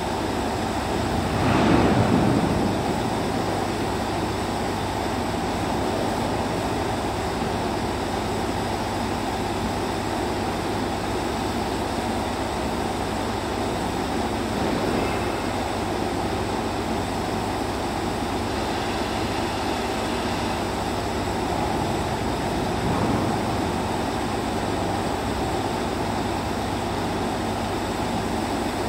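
Steady mechanical drone and hum of industrial machinery in a large steel hall, with a brief louder swell about two seconds in.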